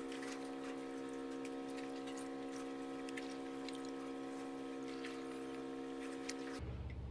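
Wet cassava slices being turned by hand in a plastic basket over a bucket of rinse water: water dripping and slices clicking together, over a steady hum. Near the end the hum cuts off suddenly and a low rumble takes over.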